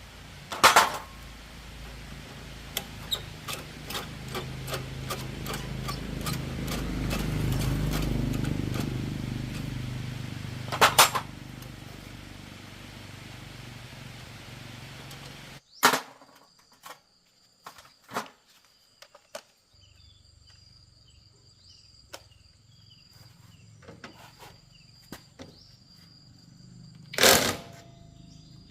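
Scattered knocks and clinks of hand tools on motorbike parts during dismantling, a few of them sharp and loud. A low hum swells and fades in the first half; after a sudden cut about halfway through, faint steady high-pitched tones sit under the knocks.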